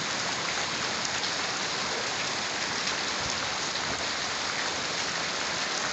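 Steady rain falling with an even hiss and scattered drop ticks, over a street running with storm water.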